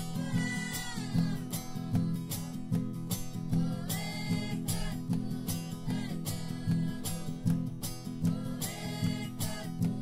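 Music: plucked strings and pitched melodic lines over low held notes, with a steady percussive beat.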